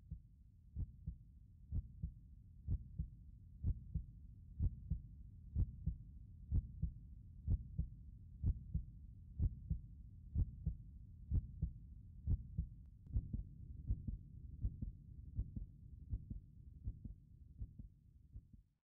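Heartbeat sound effect: a steady double thump about once a second over a low rumble, cutting off suddenly near the end.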